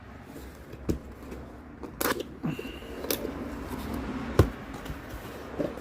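Cardboard box and its packing being opened and handled by hand: rustling and scraping with a few sharp taps and clicks.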